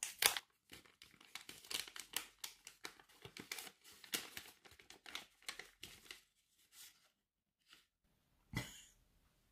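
Wrapping being crinkled and torn open by hand to unwrap a small gift, a dense run of irregular crackles for about six seconds, then one brief rustle near the end.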